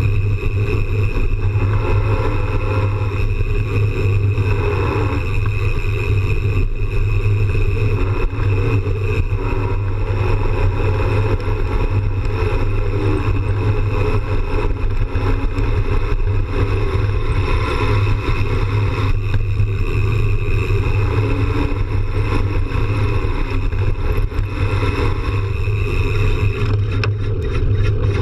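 Steady, loud rumble of a mountain bike rolling fast over a dirt trail: tyre and trail noise mixed with wind on the bike-mounted camera.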